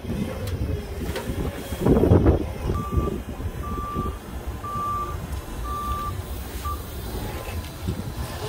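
Forklift backup alarm sounding about five short, steady beeps of one pitch, roughly one a second, from about three seconds in to near seven seconds, over wind on the microphone. A loud rustle of the heavy tarp being dragged comes about two seconds in.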